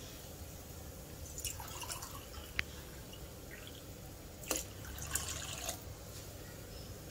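Water poured from a steel tumbler into whisked yogurt in a pot, in two short pours with soft splashing; a sharp click at the start of the second pour.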